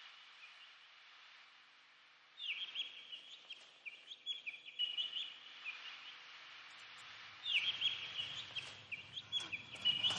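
Chorus of short, high yelping animal calls, several overlapping: faint at first, then a burst about two and a half seconds in and a louder one from about seven and a half seconds on.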